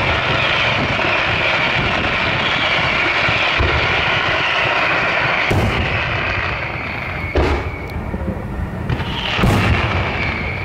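Aerial fireworks: a dense crackling hiss from many small shells and their tails, then three loud booms of shells bursting about two seconds apart, the last the loudest.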